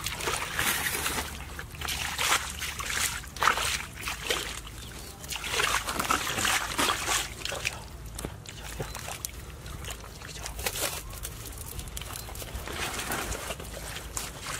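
Bare feet squelching and sloshing in soft wet mud and shallow muddy water, in irregular steps.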